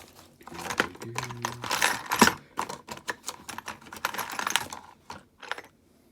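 Hand tool cutting into a diecast metal toy car body: irregular sharp clicks and rasping scrapes as a wing is cut off.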